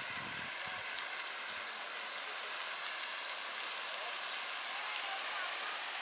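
Steady rush of running water, with a few faint high chirps over it.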